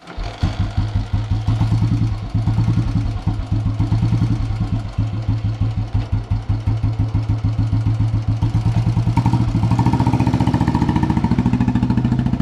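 Vintage Royal Enfield Bullet's single-cylinder engine catching and idling with an even, steady beat of exhaust pulses. About ten seconds in, the beat quickens as the revs rise.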